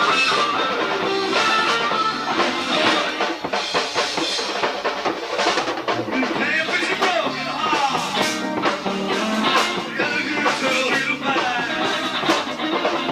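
Live rock band playing: electric guitar with bending, sliding notes over bass guitar, drum kit and bongos.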